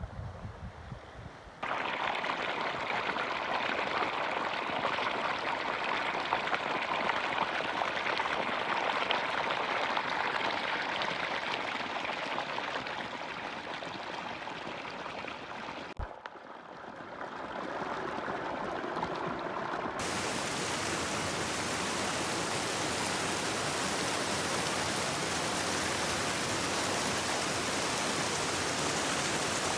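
Mountain creek running high with rain and snowmelt, a steady rush of water. Wind buffets the microphone for the first second or two. The water sound changes abruptly about 2 s in, dips and shifts around the middle, and becomes a brighter, hissier rush for the last part.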